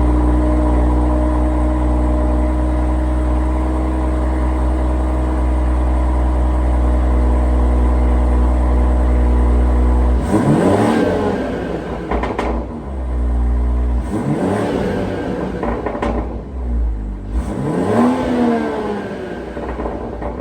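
BMW G30 540i's turbocharged 3.0-litre inline-six idling steadily for about ten seconds, then revved three times, each rev rising and falling back to idle.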